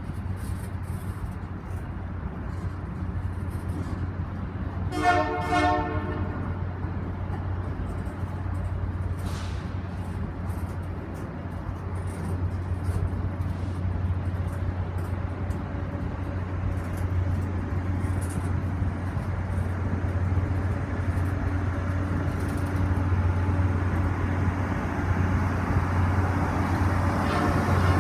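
Canadian Pacific Holiday Train's freight cars rolling past on the rails, a steady low rumble that grows gradually louder as the train departs, with a brief horn note about five seconds in.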